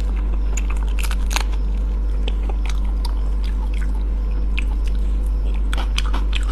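Close-miked eating of a large shrimp: bites and chewing with scattered sharp, crackly clicks, more of them near the end, over a steady low hum.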